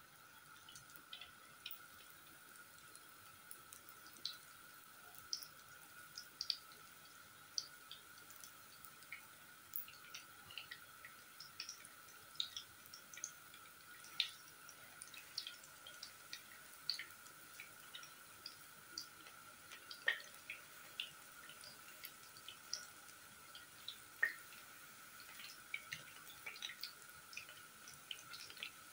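Tuna fritters shallow-frying in hot oil: irregular sharp pops and crackles, several a second, over a faint steady hum.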